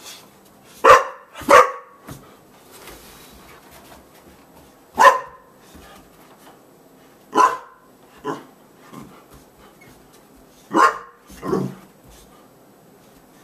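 Boxer dog barking in short single barks, some in quick pairs, with pauses of a few seconds between them.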